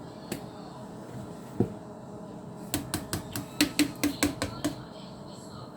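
Kitchenware clinking: a single knock, then a quick run of about ten sharp taps of a utensil or cup against a container, about five a second, while flour is added to a blender jar.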